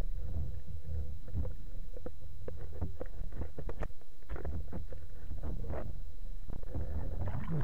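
Underwater sound heard through a camera housing on a speargun while a freediver swims: a steady low rumble of moving water, with scattered clicks and crackles.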